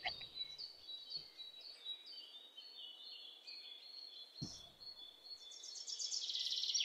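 Faint bird chirps, short high notes repeating, with a rapid high trill that builds near the end. A single soft knock comes about four and a half seconds in.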